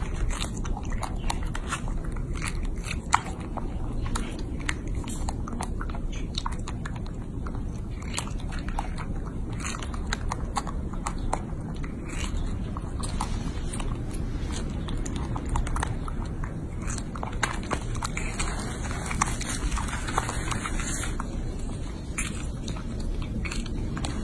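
Baby macaque biting into and chewing a fresh strawberry, with many small wet clicks and smacks at an uneven pace, over a steady low rumble.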